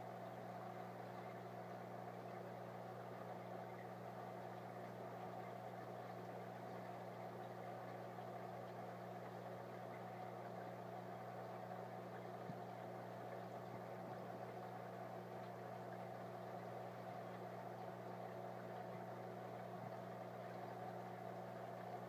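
Aquarium pump motor humming steadily: a low electrical hum with a fainter higher tone over it, unchanging throughout.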